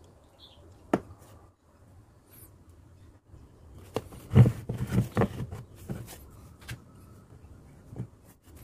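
Dry coconut shell pieces being handled, knocking and scraping against each other and the table. There is a sharp click about a second in, a cluster of louder knocks around the middle, and a few more single clicks near the end.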